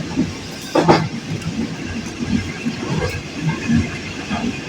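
Passenger train running along the track, heard from on board: a steady rumble and rattle of the carriage, with one sharper knock about a second in.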